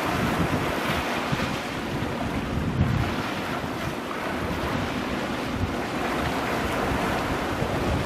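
Ocean waves washing in and breaking on coastal rocks, a steady surf hiss, with wind gusting on the microphone as an uneven low rumble.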